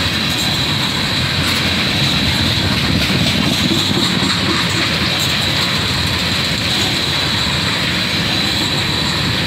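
Freight train of tank cars rolling past close by: a steady, loud rumble and rattle of wheels on the rails, with a steady high-pitched ring over it.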